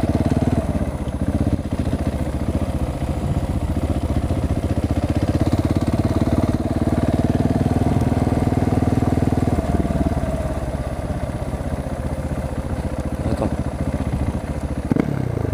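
Husqvarna 701 Supermoto's big single-cylinder engine running under way with its exhaust dB killer removed. The note swells a little in the middle, then eases off.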